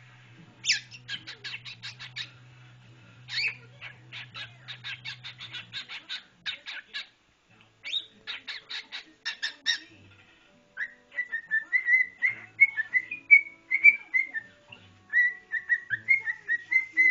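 Cockatiel calling: trains of short, sharp chirps at about five a second, broken by brief pauses, then from about ten seconds in a fast run of warbling whistled notes that bend up and down.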